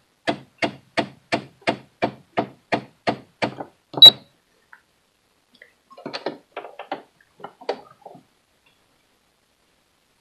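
Computerised sewing machine's panel key pressed repeatedly, about three clicks a second, as the needle position is stepped over to the far side, ending in a louder click with a short high beep about four seconds in. A few softer scattered clicks and knocks follow.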